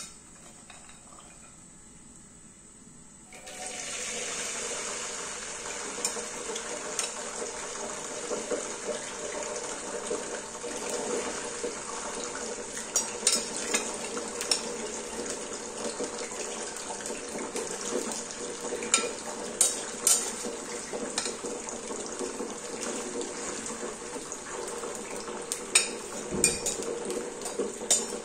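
Hot cooking oil in a pan beginning to sizzle steadily about three seconds in, as washed green peas are ladled into it. Repeated sharp clinks of a metal ladle against a glass bowl and the pan run over the sizzle.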